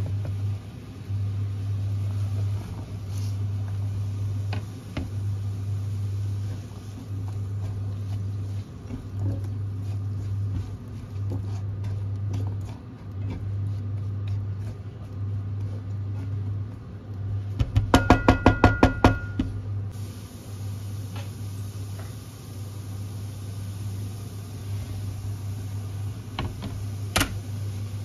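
Vegetables being cooked and stirred in a non-stick frying pan: a low hum that cuts in and out every second or so, with light taps and scrapes of a silicone spatula. About two-thirds through comes a quick run of about ten sharp clicks, and near the end a single knock as sliced mushrooms drop into the pan.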